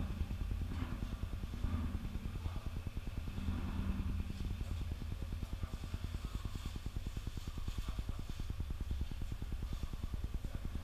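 Steady low machine hum with a fast, even pulse, like a motor running. Faint voices are heard in the first few seconds.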